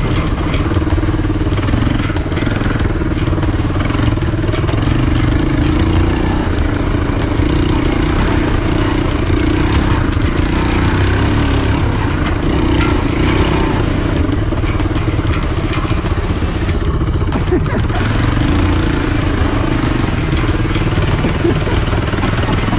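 Motorcycle engine running steadily under load on a dirt trail, heard onboard with wind noise, with frequent small knocks and rattles throughout.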